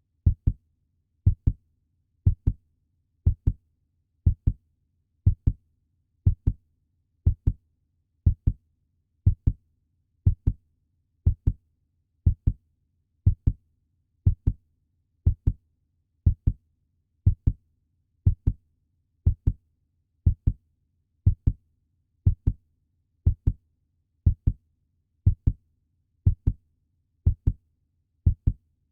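Puppy heartbeat sound effect: steady low lub-dub double thumps, about one pair a second, over a faint low hum.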